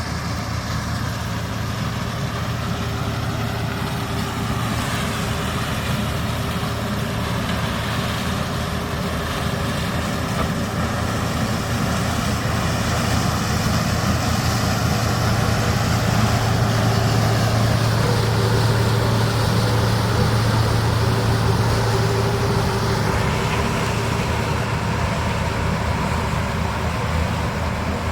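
Diesel engines of farm harvest machinery running steadily. The sound grows louder through the middle and then eases off, as a machine working nearby comes closer and moves away.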